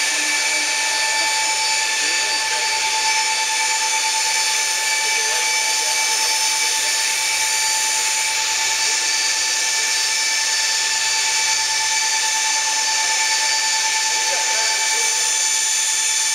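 Steady high-pitched machine whine over a hiss, unchanging throughout, from the powered-up Boeing 737 running the hydraulics that move its thrust reversers.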